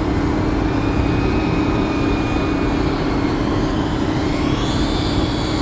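Small FPV cinewhoop drone's motors and ducted propellers buzzing in flight, with a whine rising in pitch near the end as the throttle goes up. A steady low rumble lies under it.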